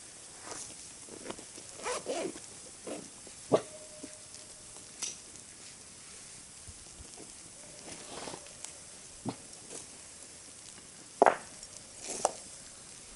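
Irregular rustling and scraping of tinder and sticks being handled and laid in a stone fire ring, with a few sharp knocks; the two loudest come about three and a half and eleven seconds in.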